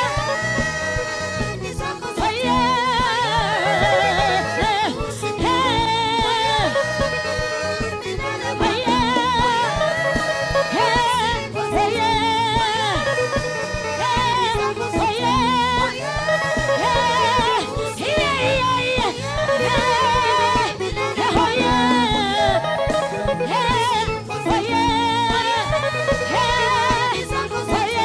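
Live gospel worship band playing between verses: a steady beat with a wavering melody line carried over it.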